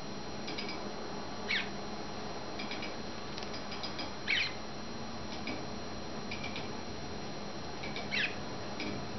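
Young cut-throat finches calling: three short falling calls spaced a few seconds apart, with soft, quiet chirps in between.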